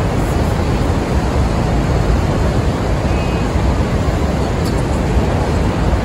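Steady, loud rushing roar of Niagara Falls' falling water, heaviest in the low end and unbroken.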